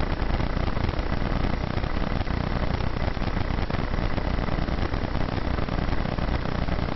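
Steady, fairly loud rushing noise with a strong low rumble and no clear tones or strokes.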